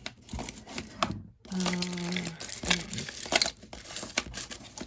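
Mother-of-pearl shell pieces and beads of a necklace clicking and clinking against one another as they are handled and turned. The light clicks come in an irregular jumble.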